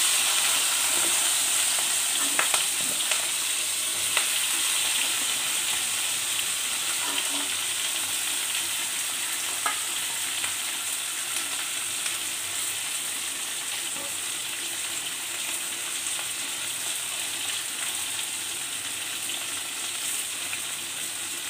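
Chunks of onion and capsicum sizzling in hot oil in an iron karahi. The hiss starts loud as they go in and slowly dies down, with an occasional small crackle.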